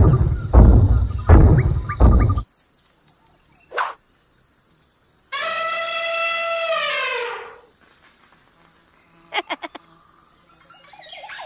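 Music with a steady beat cuts off about two seconds in. Around the middle comes one elephant trumpet call, held for about two seconds and then sliding down in pitch. A quick run of clicks follows later.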